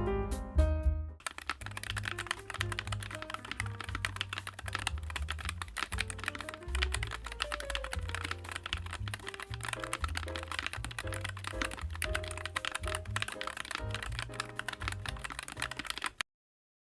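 Typing on a NuPhy Air96 ultra-slim 96% mechanical keyboard: a fast, dense run of key clicks starting about a second in and stopping suddenly near the end, with background music underneath.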